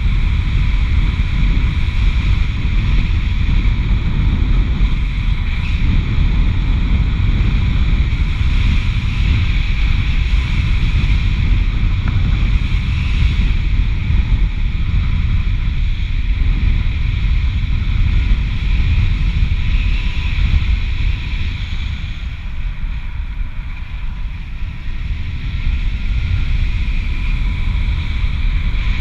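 Wind buffeting the microphone of a camera worn by a BASE jumper descending under an open parachute: a steady, loud, rumbling roar that eases slightly about three quarters of the way through.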